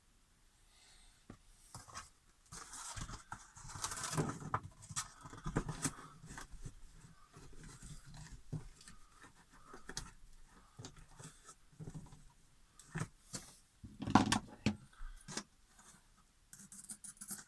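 Irregular rustling, scraping and clicking as insulation pieces are handled and pressed into place around an RV fridge, with a sharper knock about 14 seconds in.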